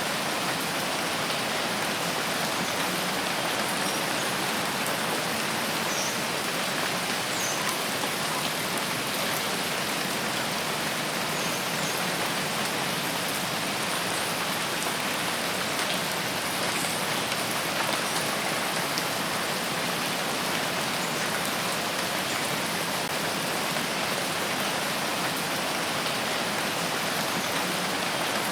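Steady rainfall, a dense even hiss of rain pattering on foliage and ground, with a few faint drip ticks here and there.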